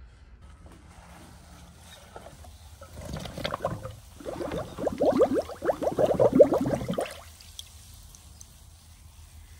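Water gurgling and glugging in a bucket of soapy water as a small engine's fuel tank is held under, air escaping from it in a quick run of glugs for about four seconds, starting about three seconds in.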